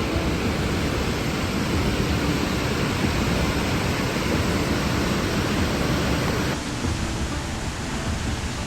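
Steady rushing of a large waterfall heard from close by, from the walkway behind the falling water. About six and a half seconds in it becomes a little quieter and duller.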